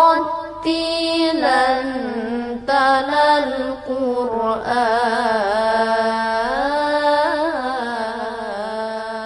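A solo voice chanting a slow melody in long held notes with sliding ornaments.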